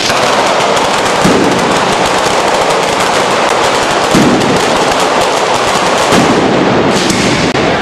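Firecrackers going off in a dense, unbroken crackle of rapid bangs, with a few heavier bangs standing out, a string of firecrackers burning along the street.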